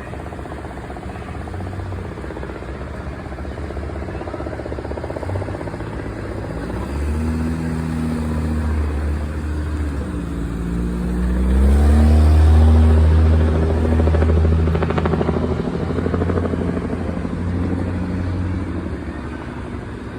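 A motor vehicle's engine running and accelerating, its pitch rising twice as it gathers speed. It is loudest about twelve seconds in, then eases off as it passes.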